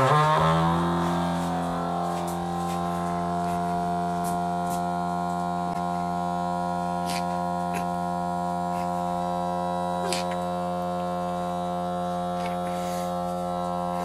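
Electric toothbrush stuck to a wooden door, buzzing steadily, with the door and its duct-tape wings droning along in one deep, unchanging hum. It is a little louder for the first couple of seconds, then holds level.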